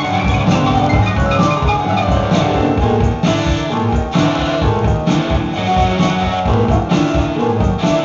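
A live band playing electric guitar, drum kit and keyboards together, with regular drum hits under the guitar and keyboard notes.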